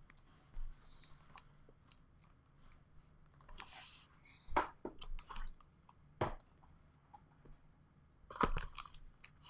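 A cardboard shipping case being unpacked: short rustling and tearing stretches and several sharp knocks as cardboard boxes are handled.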